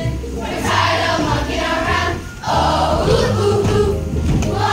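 Group of children singing with musical accompaniment over a steady bass line. The sound dips briefly a little past two seconds in, then comes back louder.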